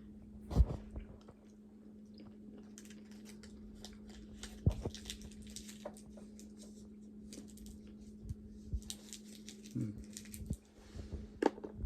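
Someone chewing a milk chocolate peanut candy close to the microphone: soft mouth clicks and smacks, with a couple of sharper knocks about half a second and nearly five seconds in.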